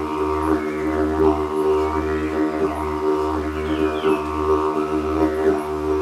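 Two wooden didgeridoos played together: a deep, steady drone with rich overtones that sweep up and down in a rhythmic pattern.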